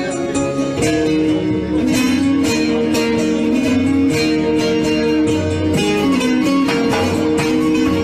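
Instrumental break of a Turkish arabesk song: plucked strings playing over long held notes, with no singing.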